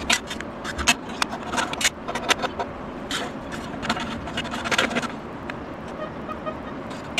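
A steel rule and small steel plates being handled and lined up on a workbench for marking. Short metallic clicks, taps and scrapes come in quick clusters and thin out after about five seconds, over a steady background noise.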